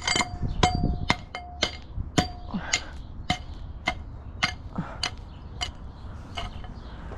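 A hammer repeatedly striking steel form pins, about two metallic blows a second. The first several blows ring with a clear tone.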